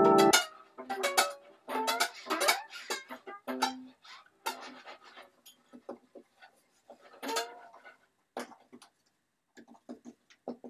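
A fiddle laid flat across the lap, its strings plucked in sparse, freely spaced notes, some sliding in pitch. The notes thin out and grow quieter near the end.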